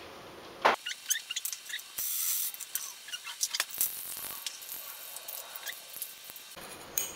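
A metal spoon clinking and scraping against a small stainless steel cup as an egg yolk is worked out and tipped into a stainless steel mixing bowl: a string of light clinks and scrapes.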